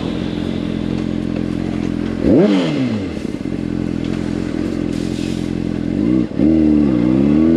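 Motorcycle engine running under way at a steady pitch, with a short rev that rises and falls about two seconds in. Near six seconds the revs drop as in a gear change, then climb steadily as it accelerates.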